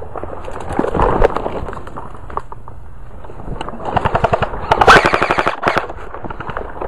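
Airsoft electric rifles firing rapid bursts of automatic fire, a short burst about a second in and a longer, louder one between about four and six seconds.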